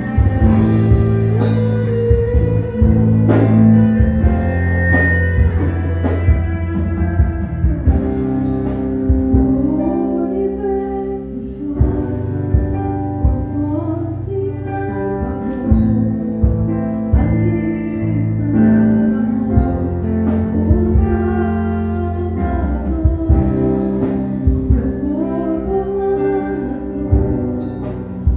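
Band music with guitar, bass notes and drum kit, with singing over it.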